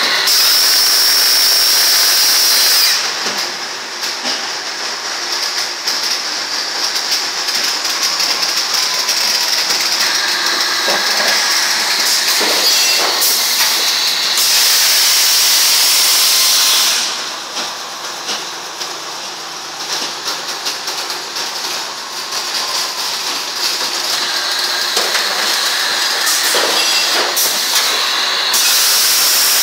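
A plastic thermoforming machine running in production: a steady mechanical din with a few knocks, broken by loud blasts of air hiss about every fourteen seconds, each lasting two to three seconds, as the forming cycle repeats.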